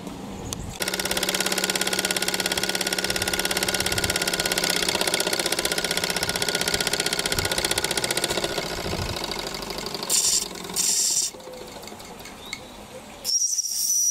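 Small Mamod live-steam traction engine running fast, with rapid, even exhaust beats that die away after about nine seconds. This is followed by two short bursts of hissing steam. Near the end comes a single high-pitched blast from its small brass lever steam whistle, which is made to sound on low boiler pressure.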